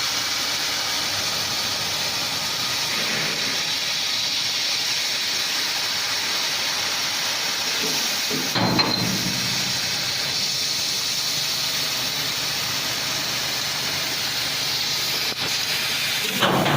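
CNC laser cutting machine at work: a steady hiss of assist gas blowing from the cutting head. There is a brief louder surge with a deeper rumble about eight and a half seconds in.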